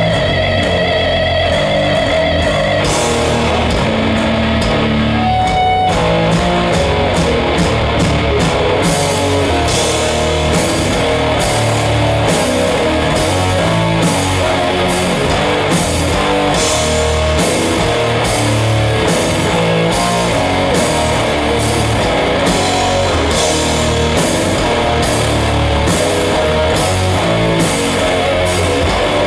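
A heavy metal band playing live, with distorted electric guitar, bass and drum kit. A held guitar note rings for the first few seconds, then the drums come in about three seconds in and settle into a fast, driving beat.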